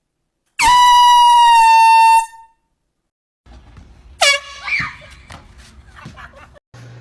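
Handheld air horn blast: one loud, steady, piercing tone lasting about a second and a half. After a pause, another shorter horn blast about four seconds in, followed by scattered knocks and rustling.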